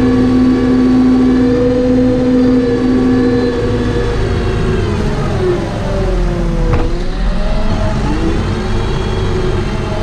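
Tractor diesel engine running under load while rolling a silage pit. Its pitch is steady at first, sags from about four seconds in, then climbs back up, with one short sharp knock about seven seconds in.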